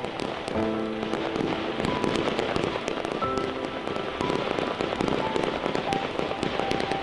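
Fireworks crackling in a dense run of rapid small pops, the crackle of glittering stars bursting, with music playing over it in held notes.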